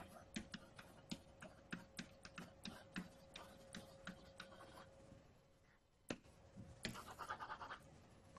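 Faint taps and scratches of a stylus writing on an interactive whiteboard: a run of sharp clicks, about two or three a second, then a short scratchy stroke near the end. A faint steady hum underneath stops a little past halfway.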